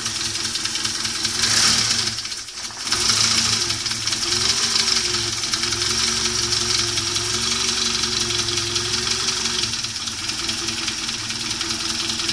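Saab 900 Turbo 16's 2.0-litre turbocharged four-cylinder engine idling steadily through a stainless steel exhaust. There is one brief louder burst about a second and a half in.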